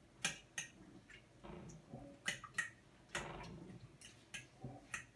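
Fork beating raw eggs in a dish, its tines clicking irregularly against the dish about two or three times a second, with a brief scrape a little past the middle.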